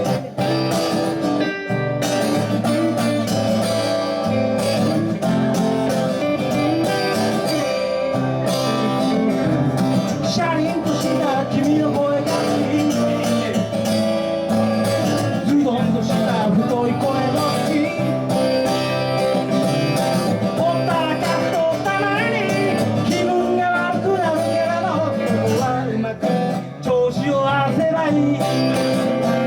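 Live music: a guitar-led song with a singing voice over it.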